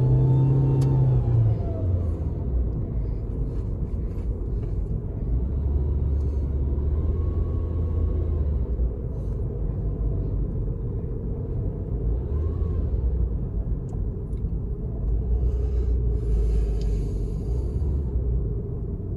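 2011 Suzuki SX4 FWD automatic running with a heavy low rumble. A faint whine rises and falls in pitch a few times over it. The owner hears this whine only when pressing the gas and wonders whether it is normal for the car.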